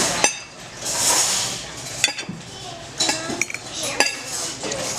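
Metal cutlery clinking against a plate, four or five sharp clinks a second or so apart, over a low murmur of voices.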